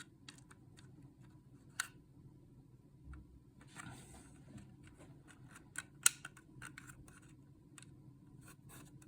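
Faint, scattered small clicks and a brief light scrape of hard 3D-printed plastic parts and a small screw and spacer being handled and fitted together.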